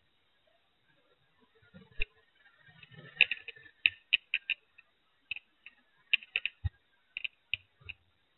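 Irregular sharp clicks and taps, several a second, starting about two seconds in, with a dull low knock about two thirds of the way through: handling noise from a small hand-held camera being moved about.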